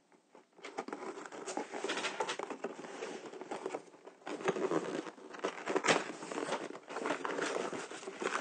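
Cardboard kit box being handled and slid open: scratchy cardboard rustling and scraping with many light taps and knocks.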